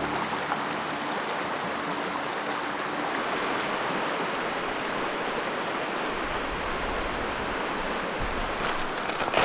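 Shallow river rippling over rocks and gravel: a steady rush of running water.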